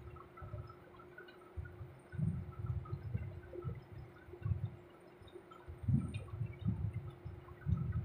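Kitchen knife sawing the crusts off bread slices on a plastic chopping board: a run of irregular, dull low thuds and rubs as the blade works against the board. A faint steady hum sits underneath.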